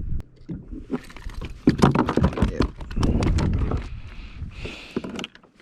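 Rapid, irregular knocks and thuds on a kayak as a freshly caught breaksea cod is killed, with a short hiss near the end.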